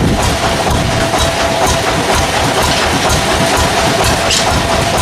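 Sawmill machinery running steadily: a loud, constant hum with scattered clicks and knocks.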